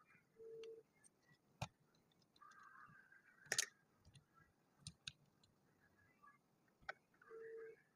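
Faint, scattered clicks of plastic building bricks being handled and snapped together, one sharper click about three and a half seconds in. Two short, steady low hums, one near the start and one near the end.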